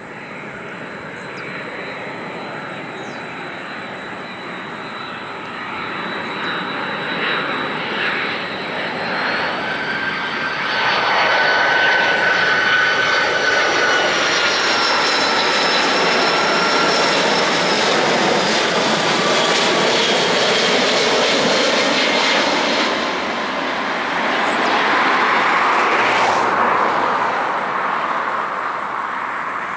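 Airbus A330-200 twin-jet airliner on final approach passing close by: engine rumble and rush growing louder, with high whining tones that slide slowly downward as it goes past, then easing off a little near the end as it nears the runway.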